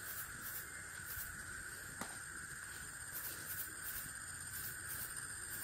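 Night insects calling: a steady high drone with short high chirps about twice a second, and a single sharp click about two seconds in.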